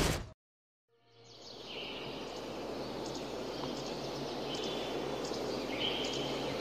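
A brief loud burst at the very start, then after a second of silence an outdoor ambience fades in: a steady wash of noise with birds chirping now and then.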